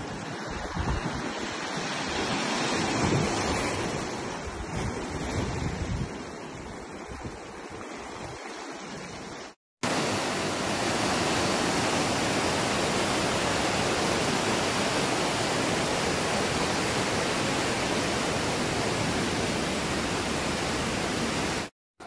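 Sea waves washing over a rocky shore, swelling and easing, with wind buffeting the microphone. After a sudden cut about ten seconds in, a louder, steady rush of white water cascading down between rocks in a narrow gorge.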